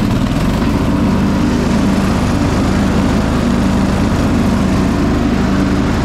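Riding lawn mower's Briggs & Stratton engine running steadily at a constant speed, with its blade-engagement safety kill switch bypassed by a zip tie so that it no longer cuts out.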